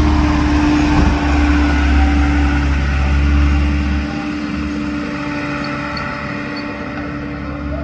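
Heavy engine running steadily with a deep low hum and a steady tone above it; the lowest part of the hum eases off about four seconds in.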